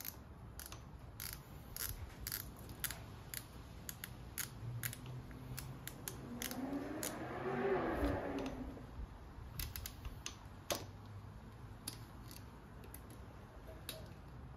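Small irregular metal clicks and ticks of hands working a part on a motorcycle carburetor, threading it in by hand, with a louder rustling swell about halfway through.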